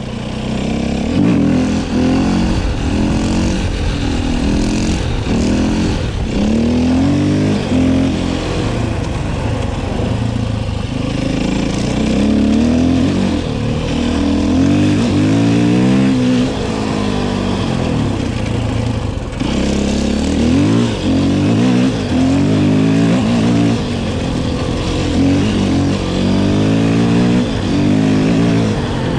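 KTM 450 EXC-F enduro motorcycle's single-cylinder four-stroke engine, accelerating hard again and again: the pitch climbs through the revs, drops back at each shift or throttle-off, and climbs again, with a brief break about nineteen seconds in.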